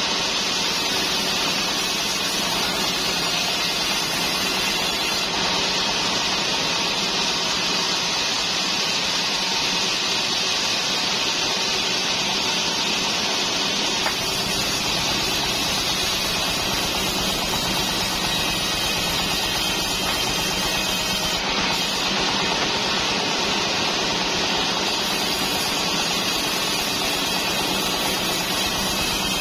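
Large sawmill band saw running steadily, its blade sawing trembesi (rain tree) timber.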